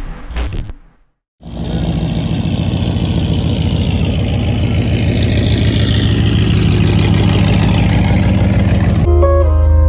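The engine of a lowered Ram 1500 pickup idling steadily through its exhaust, starting after a short gap about a second in; acoustic guitar music comes in near the end.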